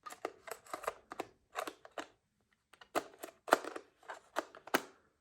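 Nikon 35mm DX lens being handled and turned onto a camera body's bayonet mount: a run of small, irregular clicks and scrapes as the lens is lined up and twisted into place.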